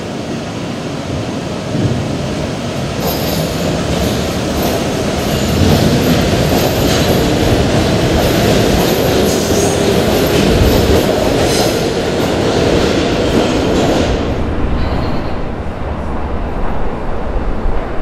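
Vintage New York City subway train of R33 and R12 cars running past along the platform, steel wheels on the rails. It grows louder after a few seconds, then drops away about fourteen seconds in as the last car goes by.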